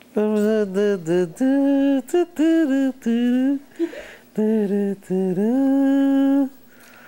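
An adult humming a tune in a string of held, sliding notes broken into short phrases, ending on a note held for about a second.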